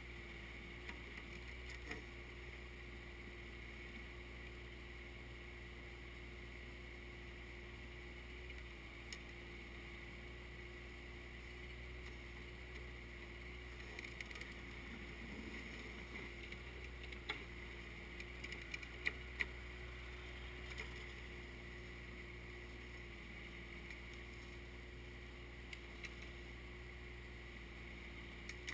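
Kioti 3054 tractor's diesel engine running steadily while the backhoe is worked, with a few sharp knocks partway through.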